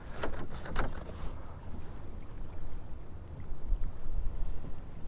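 Scattered knocks and handling noises against a kayak, over a steady low rumble of wind on the microphone.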